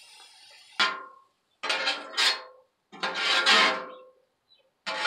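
A metal spatula scraping and pushing crumbled sausage across a steel flat-top griddle: a sharp clank about a second in, then three or four separate scraping strokes with a metallic ring.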